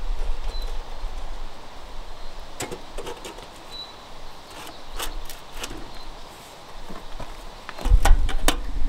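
Scattered metal clinks and knocks as a wood-fired samovar is put together: the water urn and teapot are set on top of the smoking firebox and the firebox door latch is worked. A cluster of knocks and a low rumble come in near the end.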